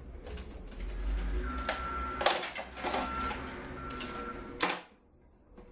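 Plastic and metal clattering, scraping and clicking as a CRT television's main circuit board is worked loose from its plastic chassis rails and its parts pulled free. There are several sharp knocks, and the sound cuts off abruptly about a second before the end.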